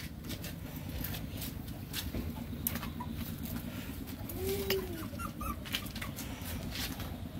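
A single low, rounded coo, typical of a dove, about halfway through, over light clicks and rustles of styrofoam food trays being handled.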